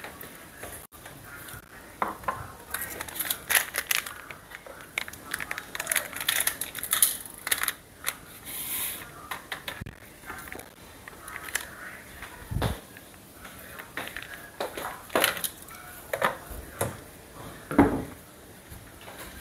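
A metal spoon clinking and scraping on a ceramic plate, and a plastic water bottle being handled and set down on a glass tabletop, in scattered clicks and knocks with a heavier knock near the end.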